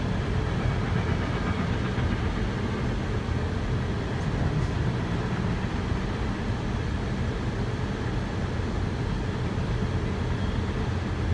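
Long freight train rolling past at steady speed, a continuous low rumble of railcars on the rails, muffled from inside a stopped car.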